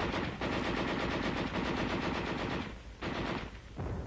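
Browning water-cooled .30 caliber heavy machine gun firing a long automatic burst, briefly broken just under half a second in and stopping about two and a half seconds in, then two short bursts near the end.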